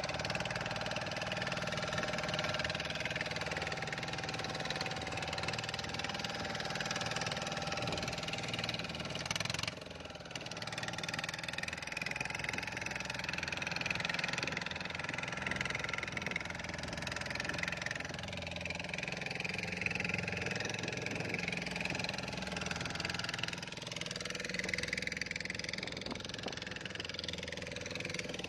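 A small fishing boat's engine running steadily under way, with a constant rush of wind and water over it.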